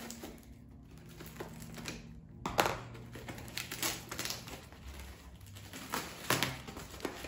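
Scissors snipping at plastic wrap and tape, then irregular crinkling and crackling of plastic and cardboard packaging as it is pulled open by hand, with one sharp crackle about two and a half seconds in.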